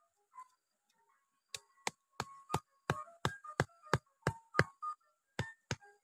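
A wooden stake being hammered into the ground with a hatchet: a quick, even run of sharp knocks, about three a second, starting about a second and a half in.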